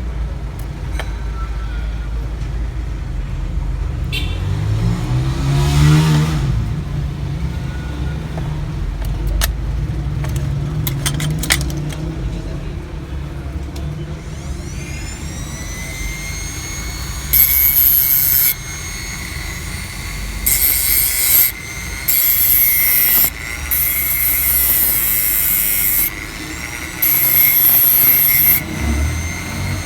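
A low rumble, then about halfway through a small motor spins up into a steady high whine, with loud hissing spells that start and stop several times.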